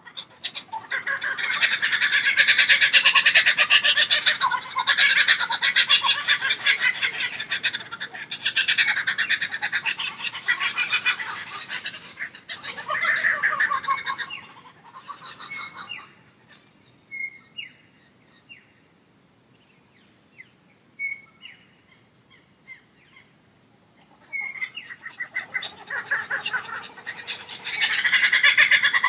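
Birds calling: loud, rapid chattering runs lasting several seconds, with a lull in the middle that holds only a few short chirps.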